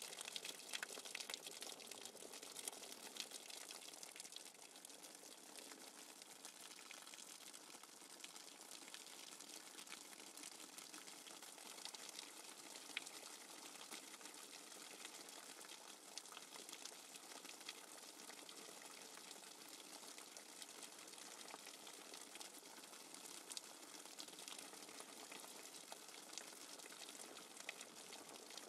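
Faint steady rain falling on puddled ground: an even hiss dotted with the small ticks of single drops, a little heavier in the first few seconds.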